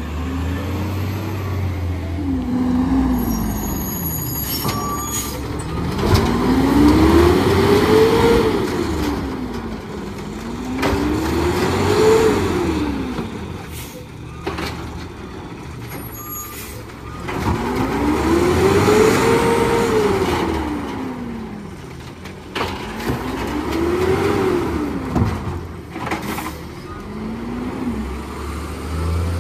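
Natural-gas engine of a 2011 Peterbilt 320 garbage truck being revved hard again and again, its pitch climbing and falling in four big swells, revved to drive the Amrep automated side loader's hydraulics while it works carts. Short air-brake hisses come between the revs.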